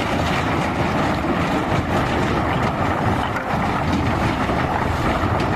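Steady spray of water rinsing mud off a plastic toy dump truck.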